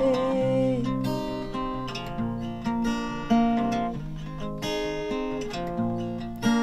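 Acoustic guitar strumming chords about once a second, letting them ring between sung lines of a Rapa Nui song. A woman's voice trails off on a held note in the first second.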